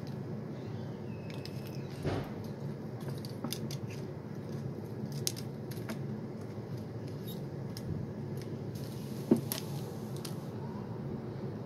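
A kitten playing on a tiled floor, batting a small hard object so that it clicks and taps against the tiles. The taps are scattered and irregular, the sharpest about two seconds in and again near nine seconds, over a steady low background hum.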